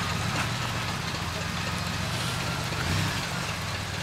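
Suzuki SJ413 4x4's engine running steadily under load as it pulls through deep mud, with a short rise in revs about three seconds in.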